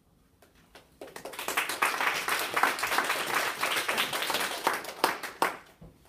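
Audience applauding. The clapping starts about a second in, fills the room, and dies away with a few last claps near the end.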